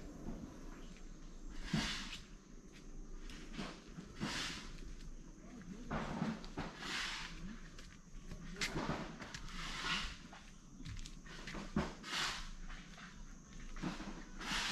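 Footsteps of a person walking at an unhurried pace, each step a short scuffing crunch, one every second or two.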